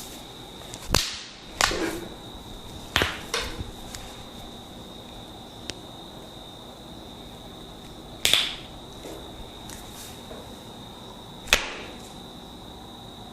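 Sharp slapping strikes of a barber's percussive hand massage: two quick pairs early on, then two single strikes several seconds apart, each with a short fading tail.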